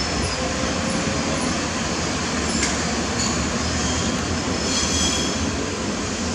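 FS E656 electric locomotive and its coaches rolling past, a steady rumble of wheels on the track with faint thin wheel squeal at times.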